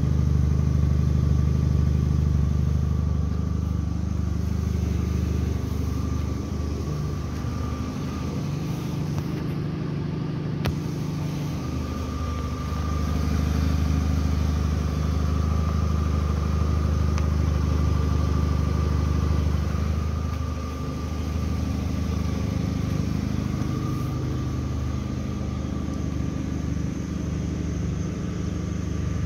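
Car engine running with road noise while driving. The engine note shifts in pitch several times, and there is one brief click about ten seconds in.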